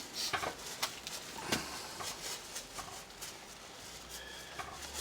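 Raindrops tapping irregularly close by, with the low rumble of strong, gusty wind, louder near the end.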